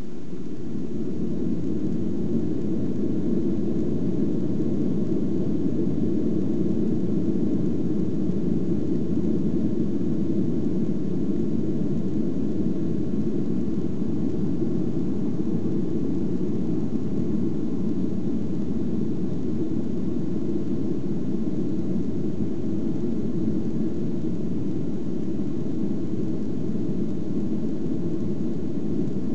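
Boeing 737 airliner heard from inside the cabin: a steady low rumble of jet engines and wheels on the runway, rising slightly about a second in and then holding level.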